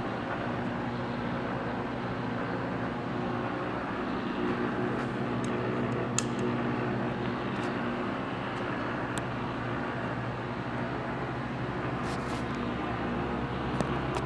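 Monarch 10EE precision lathe running steadily on its VFD drive, a continuous hum with a few light clicks.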